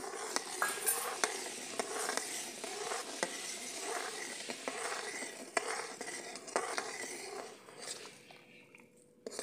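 Steel ladle stirring sugar into thickening milk in an aluminium kadhai, clinking and scraping against the pan now and then. The stirring dies down near the end.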